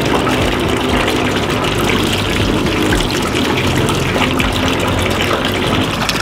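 Tap water running steadily from an outdoor pipe, splashing over hands and a raw chicken wing being rinsed under the stream.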